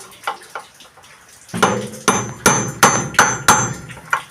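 Hammer blows on a steel socket driving a new bearing into a washing machine's drive mechanism: about six quick metal-on-metal strikes with a high metallic ring, starting about a second and a half in.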